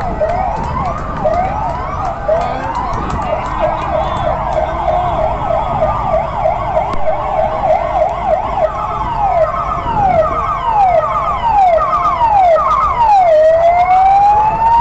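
Several fire-truck sirens sounding at once, wailing and yelping out of step with each other so their rising and falling pitches overlap. Near the end one siren sweeps up in a long slow rise.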